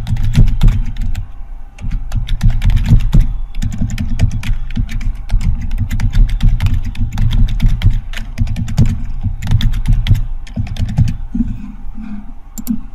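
Typing on a computer keyboard: fast, irregular key clicks with dull thuds under them, pausing briefly about two seconds in.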